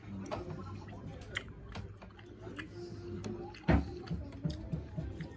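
A person eating soup: chewing, with scattered small clicks and one louder knock about three and a half seconds in.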